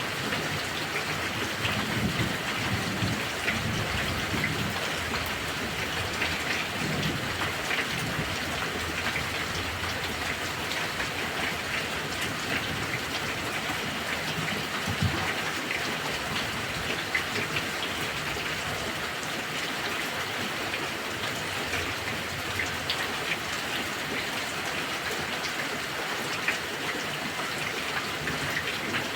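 Heavy rain falling steadily, with many close drops pattering on a surface and low thunder rumbling in the first half.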